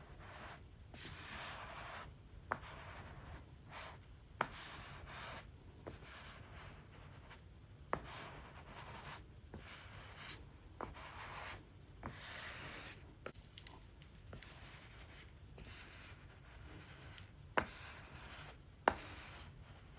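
Apple Pencil Pro on the iPad Pro's glass screen: a string of short rubbing strokes, each about a second long, broken by sharp tip taps, the loudest two near the end.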